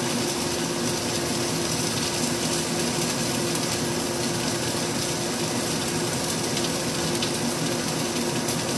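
Chicken and broccoli sizzling steadily as they fry in a pan, with a low steady hum underneath.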